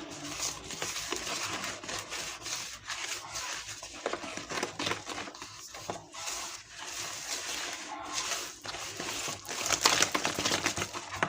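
Cake batter being mixed by hand in a bowl, just after the flour has gone in: irregular scraping and swishing strokes of a utensil through the thick batter and against the bowl, with a louder spell near the end.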